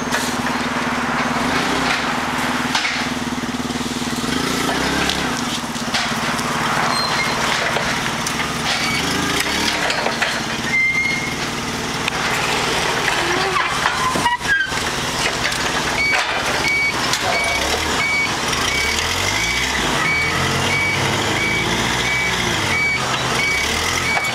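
Forklift engine running as it works, the pitch shifting in the last third as it manoeuvres. About two-thirds of the way in its reversing alarm starts beeping, about twice a second.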